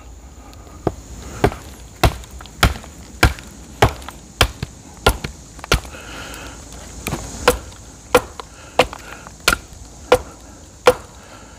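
Batoning: a wooden baton striking the spine of a Fobos fixed-blade knife to split a rain-wet log section, in steady sharp knocks about one and a half a second, with a brief pause a little past the middle.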